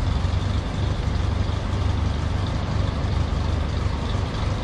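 A heavy engine running steadily at a constant speed, a deep, even low hum.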